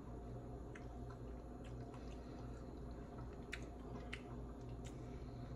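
Soft, wet chewing and mouth sounds from a mouthful of food, with a few faint clicks, over a steady low room hum.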